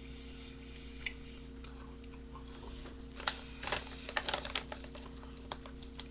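A scattered run of small sharp clicks and taps, thickest a little past the middle, over a steady electrical hum.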